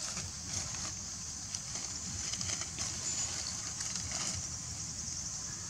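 Outdoor forest ambience: a steady high-pitched hiss of insects, with a few light rustles in dry leaf litter.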